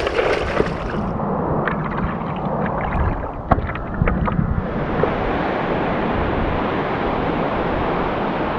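Seawater splashing and sloshing around a surfboard as it is paddled, with scattered sharp drips and splashes. From about halfway there is a steady rush of ocean surf and wind on the microphone.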